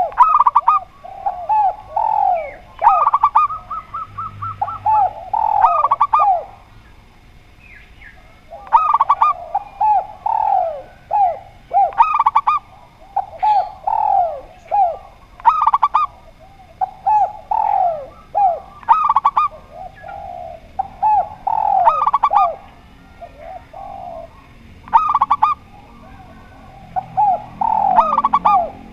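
Spotted dove and zebra dove calling together in repeated phrases: lower falling coos interleaved with higher, rapid staccato cooing notes, with a short lull about seven seconds in.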